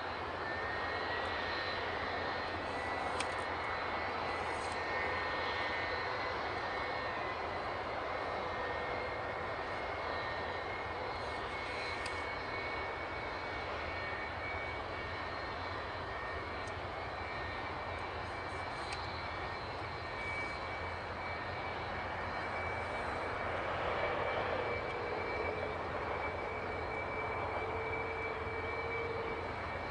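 Boeing 757 idling on its one remaining jet engine, a steady high whine over a rushing hiss; the other engine is out after a bird strike.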